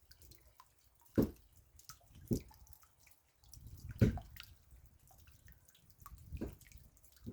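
Raindrops dripping: four heavy drops land at uneven intervals among many faint ticks of smaller drops.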